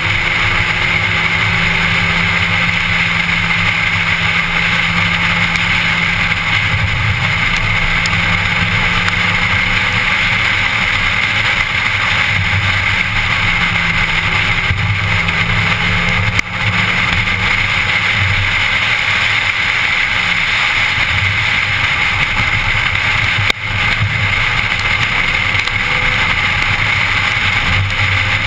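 A car driving at speed, heard from inside the cabin: steady engine and road noise, the engine note slowly rising and falling, with two brief drops in level, one about halfway through and one later on.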